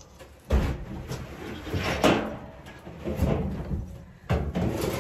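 Knocks and bumps of equipment being handled and shifted about: four or so sharp knocks roughly a second apart, with handling noise between them.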